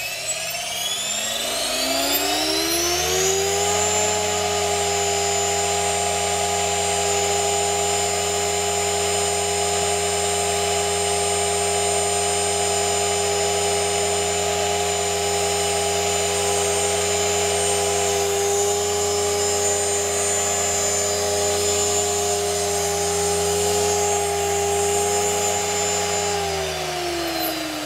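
Electric 500-size RC helicopter with a Castle 1800 kV brushless motor spooling up: its motor and rotor whine rises in pitch over about four seconds, holds a steady pitch at head speed, then falls as it spools down near the end.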